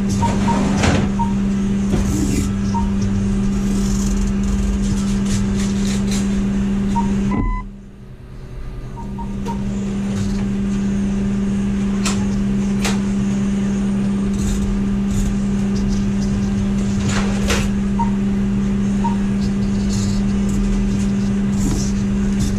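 Steady electrical or machine hum with a single pitch. It cuts out suddenly about seven and a half seconds in and comes back a second and a half later. Short high beeps sound now and then.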